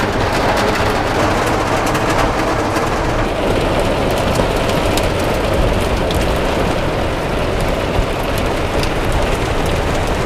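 Heavy rain falling on a campervan's roof and windscreen, heard from inside the van: a steady, dense patter with many small, sharp drop hits.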